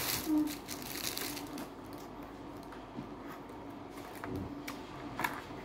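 Faint crinkling and clicking of a thin clear plastic dessert container being picked up and handled, with a few sharper clicks about a second in and near the end.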